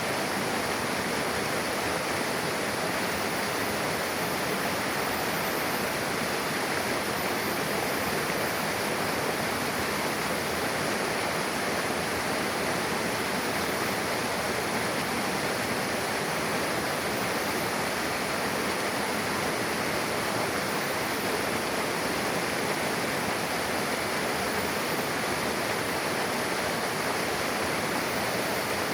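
Mountain river rushing steadily where two streams meet, a constant full rush of flowing water without breaks.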